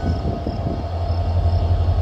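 Union Pacific freight train rolling past: a steady, heavy low rumble of wheels on rail, with faint short high-pitched chirps now and then.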